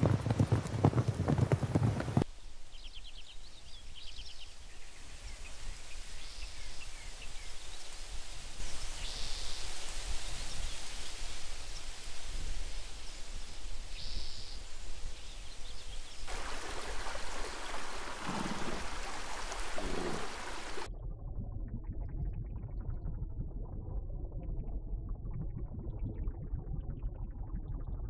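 A run of outdoor nature ambiences. It opens with a herd of pronghorn galloping over grass, a low rumble with clattering hoofbeats. Then comes a soft steady hiss of open air with a few short bird chirps, then a louder rushing like moving water, and from about three quarters of the way in a muffled underwater rumble and bubbling.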